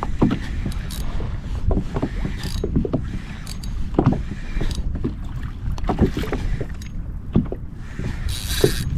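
Choppy water slapping and knocking against a kayak's hull, with a steady rumble of wind buffeting the microphone. A short hissing splash comes near the end.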